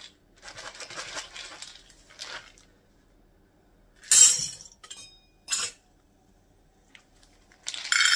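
Dry white beans rattling in a plastic bottle as they are tipped into a measuring cup, then the loudest sound: a half cup of beans poured through a steel funnel into a glass canning jar, a brief clattering rush about four seconds in. A second short clatter follows a second later, and the beans rattle in the bottle again near the end.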